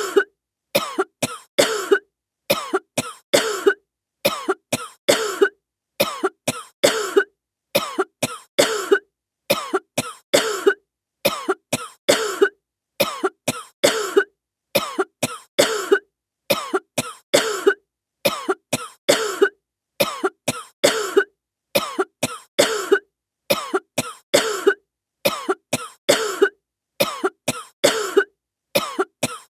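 A short stock sound effect looped over and over, repeating about every 1.75 seconds: each repeat is a couple of quick sharp clicks followed by a short harsh burst, with silence between repeats.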